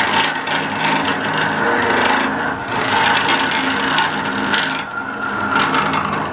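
Jet wood lathe running with a steady hum while a steel turning tool cuts into the spinning wood with a rough, uneven scraping, as the goblet is parted off its waste block.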